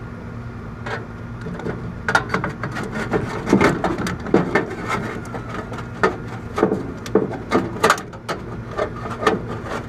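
Wires and spade connectors being handled and pulled off an air conditioner's capacitor: a busy string of small clicks, knocks and rattles, over a steady low hum.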